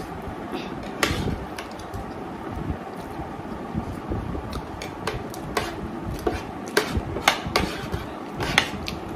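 Forks and spoons clinking and scraping against plates, with scattered sharp clicks, as two people eat noodles fast, along with noodle slurping.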